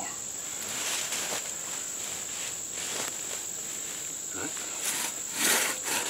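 A steady, high-pitched insect buzz, then from about five seconds in a 3-foot two-man crosscut saw rasping through a standing tree trunk in strokes about half a second apart, as the sawing resumes.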